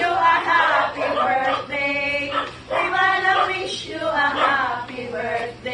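A group of women singing together in held phrases, a serenade sung for a birthday.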